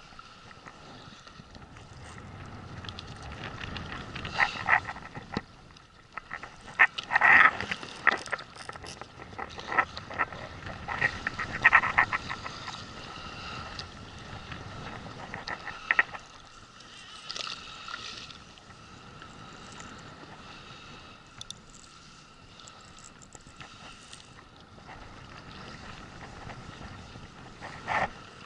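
Baitcasting reel's drag slipping in bursts of rapid clicking as a large hooked fish keeps taking line, even with the drag tightened. Wind and water noise underneath.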